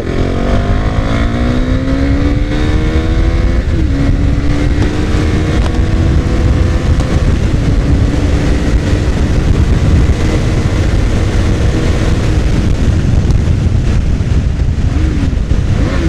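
KTM Duke 390's single-cylinder engine under hard acceleration, rising in pitch, with a short break about four seconds in as it shifts up, then pulling steadily at high speed before easing off near the end. Heavy wind rush on the microphone runs under it.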